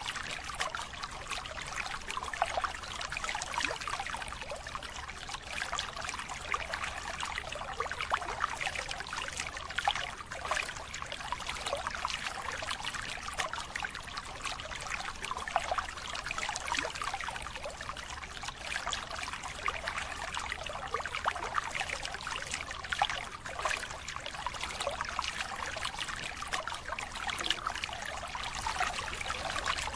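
Water splashing and trickling as fish thrash in a net crowded in the shallows and the net is worked by hand: a continuous patter of many small splashes with no pauses.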